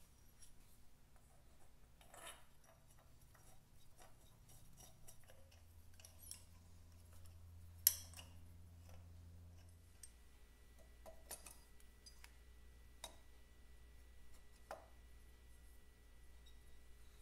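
Faint scattered clicks and light metal-on-metal clinks of a small spanner and engine parts being handled while a brass carburettor adapter and carburettor are fitted to a motorcycle cylinder head, with one sharp clink about eight seconds in.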